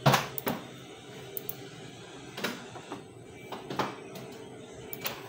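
Several sharp computer-mouse clicks, with a heavier knock right at the start, over a steady low hum.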